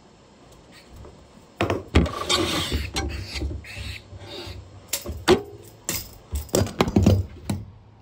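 Handling noise close to the microphone: irregular knocks, thumps and rustling as the camera is moved and bumped against a glass-fronted reptile enclosure, starting about a second and a half in.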